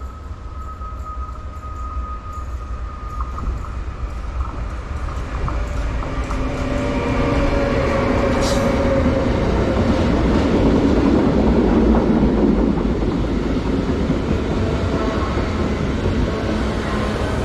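Passenger train approaching and running past on the line, its rail noise swelling over about ten seconds and then staying loud. A thin high whine fades out as it nears, and there is a single sharp click about eight seconds in.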